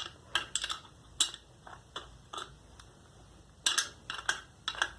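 Socket wrench working a bolt on a scooter exhaust bracket: scattered sharp metal clicks and clinks, coming thickest in clusters near the end.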